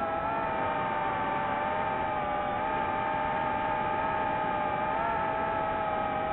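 DJI FPV drone's motors and propellers whining steadily in flight, several close tones wavering slightly in pitch as the motors hold speed.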